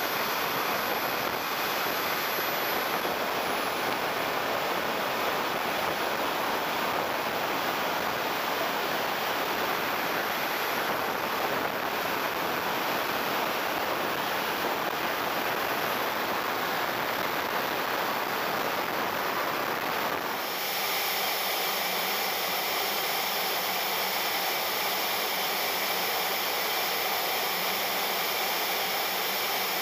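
JetCat 160SE model jet turbine in flight, heard from a camera on the airframe: a steady rush of turbine exhaust and airflow with a faint high whine that dips and climbs in pitch. About twenty seconds in the sound changes suddenly to a smoother whine with several steady high tones.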